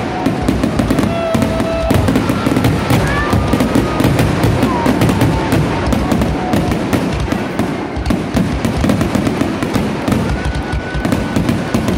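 Aerial fireworks display: shells bursting overhead in a dense, rapid run of bangs and crackles, one on top of the next, with no break.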